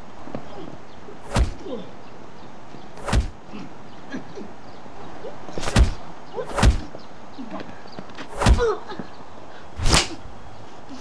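Martial-arts fight hit sound effects: six sharp whip-like smacks with a thump beneath, one every second or two, with faint bird chirps between them.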